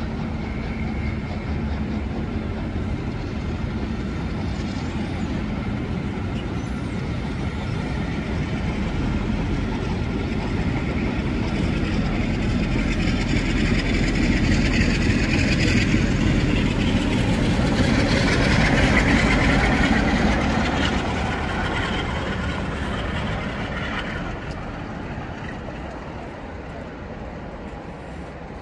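A rake of maroon railtour coaches rolling past, wheels rumbling on the rails. The noise grows louder to a peak about two-thirds of the way through, then fades as the end of the train passes and it draws away.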